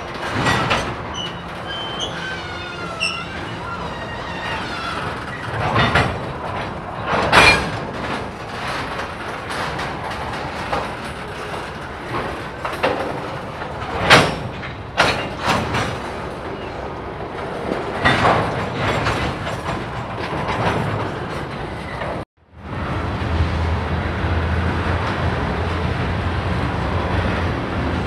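Freight train of tank cars rolling past, with a steady rumble of wheels on rail, several sharp metallic bangs and brief wheel squeal. Near the end the sound cuts out for a moment and is followed by a steady low rumble.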